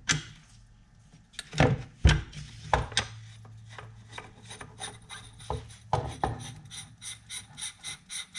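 Threaded end cap and sleeve of a Leone quiet barrel being screwed on by hand. A few knocks of the metal parts come first, then a run of quick scraping ticks as the threads and O-ring turn, until it is hand tight.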